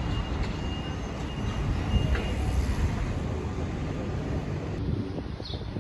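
A train running, a steady low rumble with a faint high whine through the first half.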